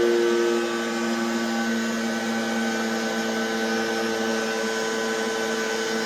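Sparx portable skate sharpener running a sharpening pass on a skate blade: a steady motor hum at an unchanging pitch, a little louder in the first second.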